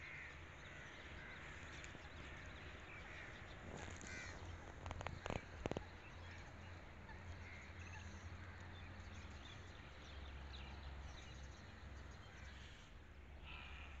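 Birds calling faintly over a low, steady rumble, with a short cluster of sharp clicks about five seconds in.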